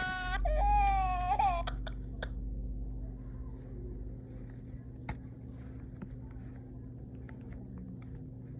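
Cry baby doll's built-in sound unit playing a recorded baby cry, which stops about a second and a half in. Faint handling clicks and rustles follow.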